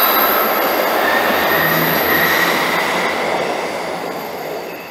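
ScotRail diesel multiple unit running out along curved track, its wheels squealing in several steady high tones over the rumble of wheels on rail. The sound fades steadily as the train draws away.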